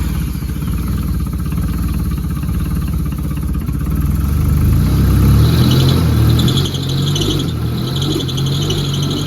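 Nissan S14's SR20 four-cylinder engine running just after being started, the idle rising a little around the middle. From about five seconds in, a pulsing high squeal runs over it.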